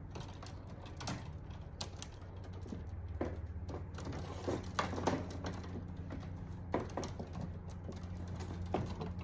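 Scattered light clicks and taps of wires and hand tools being handled in an electrical panel, over a steady low hum.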